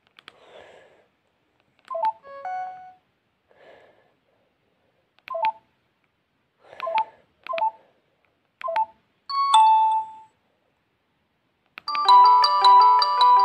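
LG GS101 mobile phone: a string of key clicks and short electronic beeps, then about twelve seconds in a ringtone melody with several notes at once starts playing from the phone's speaker.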